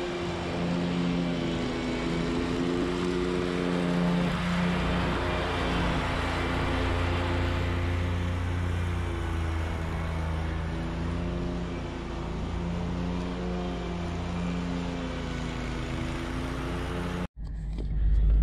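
Riding zero-turn lawn mower engine running steadily under load as it mows, its pitch wavering slightly. It cuts off suddenly near the end, giving way to a low rumble.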